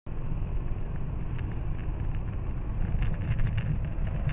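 Steady rumble of a vehicle driving, heaviest in the low end, with a few faint ticks.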